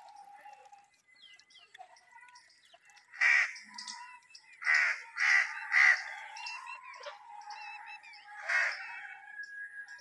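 Crow cawing: five harsh caws, one about three seconds in, three in quick succession around five to six seconds, and a last one near the end, over faint chirping of small birds.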